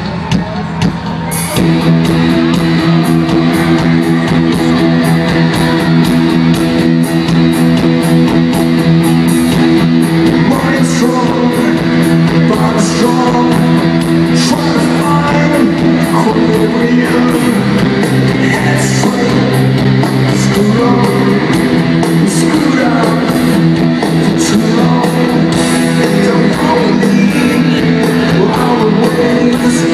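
Rock band playing live in an arena: distorted electric guitars holding chords over a steady drum beat, with the full band coming in about a second and a half in.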